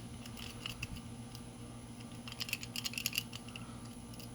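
Light metallic clicking and ticking of a lock pick rake worked in and out of a Defense disc padlock's pin-tumbler keyway. The clicks come in a quick run about two to three seconds in.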